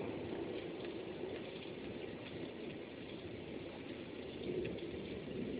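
Steady rain falling during a thunderstorm.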